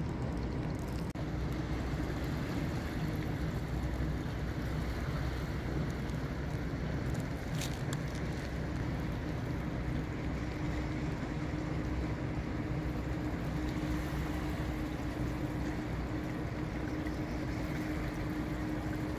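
Steady low outdoor rumble of city traffic by a flooded riverbank, with a faint steady hum through much of it and one brief click about eight seconds in.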